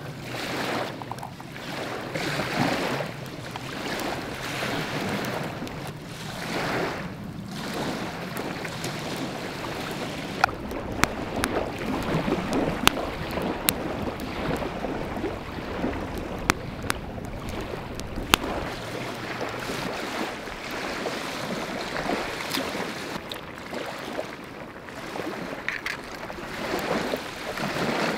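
Small lake waves washing onto a gravel shore, swelling and fading every few seconds, with some wind on the microphone. A scattering of sharp crackles from the wood fire comes through in the middle.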